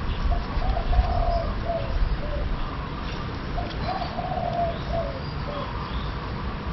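A dove cooing in two phrases of short repeated notes, the second beginning about three and a half seconds in, over a steady low rumble.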